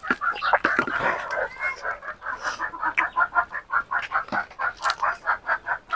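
Chicken clucking in a fast, even run of short notes, about five or six a second.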